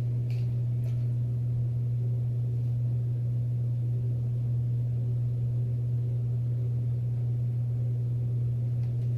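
A steady low hum, one unchanging tone that carries on without a break, with a couple of faint light ticks about half a second and a second in.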